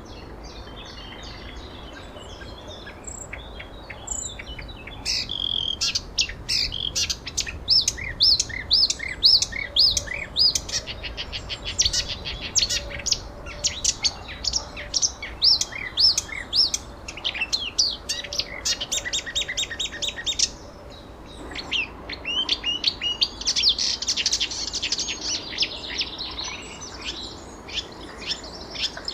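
Songbirds chirping and trilling in rapid runs of short notes, sparse at first and busier from about five seconds in, with a short lull past the middle, over a faint steady background hiss.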